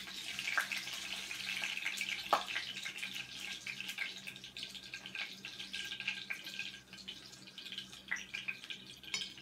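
Vegetables deep-frying in hot oil: a steady sizzle thick with fine crackles, with a few sharp clicks of cooking chopsticks, the loudest about two seconds in.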